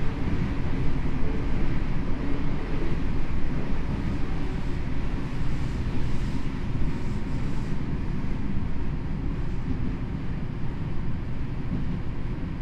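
Tokyo Metro 7000 series subway car running at speed through a tunnel, heard from inside the car: a steady rumble and hiss of wheels on rail with no clear motor whine.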